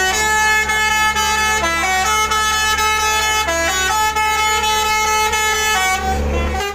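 Indonesian bus 'telolet' horn playing a melody: loud stacked air-horn notes that step up and down between pitches every second or so, almost without a break.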